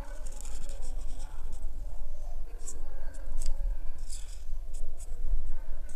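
Felt-tip marker scratching across paper as colour is filled in: short scratchy strokes a few times a second at an uneven pace, over a low steady rumble.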